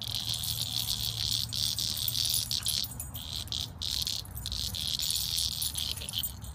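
Chorus of insects trilling steadily in a high band, dipping briefly a few times, over a faint low rumble.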